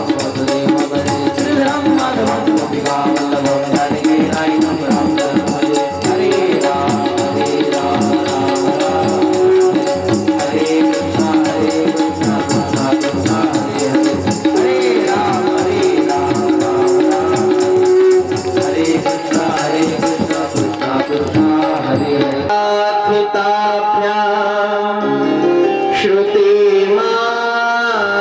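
Devotional music with a fast, even percussion beat under melodic lines. About 22 seconds in, the beat drops out, leaving held melodic notes that step up and down.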